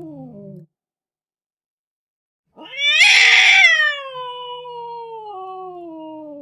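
Domestic cat's angry, drawn-out yowls: one ends with a falling pitch about half a second in, and after a silent gap another starts about two and a half seconds in, loud and harsh at first, then sliding down into a long falling wail.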